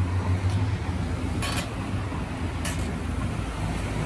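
Steady low hum of street background, with a few brief rustling noises about half a second, one and a half and nearly three seconds in.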